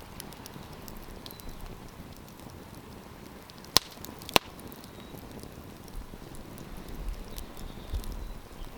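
Wood campfire crackling, with many small scattered snaps and two loud sharp pops just over half a second apart about midway.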